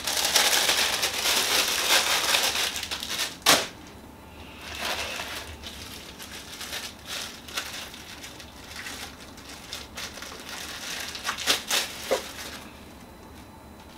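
A clear plastic packaging bag being handled and opened, crinkling densely for the first few seconds and ending in a sharp crack, then softer scattered rustles with a few sharp clicks near the end.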